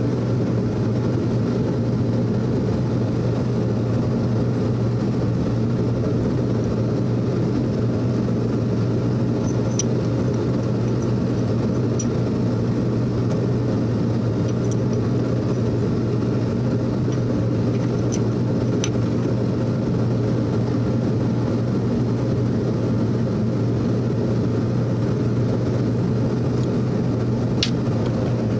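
A steady low mechanical hum from running shop machinery, with a few faint light metal clicks as hand tools are handled.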